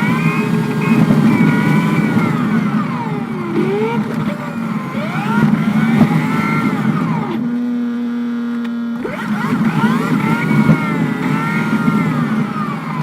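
Converted school bus engine pulling the bus along, its whine rising and falling in repeated sweeps as it speeds up and changes gear. About halfway through it settles for a moment to a steady drone, then climbs again.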